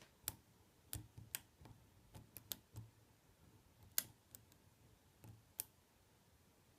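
Faint, irregular clicks of a lock pick and tension wrench working the pins of an ABUS C83 padlock during single-pin picking, with the sharpest click about four seconds in.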